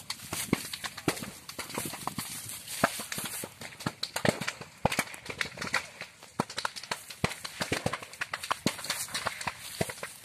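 Slash fire burning the dry cut vegetation of a cleared hillside field: continuous crackling over a rushing hiss, with many sharp, irregular pops.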